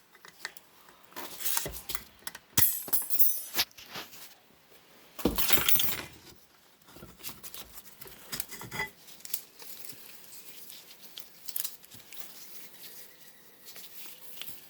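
Metal transmission parts clinking and clanking as they are handled and set down during teardown: scattered separate knocks, with a ringing metallic clink about two and a half seconds in and the loudest clank around five seconds in, then lighter taps.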